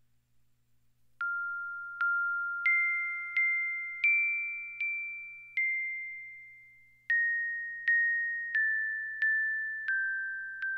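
Slow music-box-like melody of single bell-like notes, each struck and left to ring away, about one note every 0.7 s. The tune climbs a few steps and then walks back down, starting about a second in.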